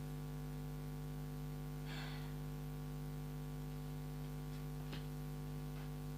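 Steady electrical hum in the recording, several fixed low tones, with a soft rustle about two seconds in and a few faint clicks near the end.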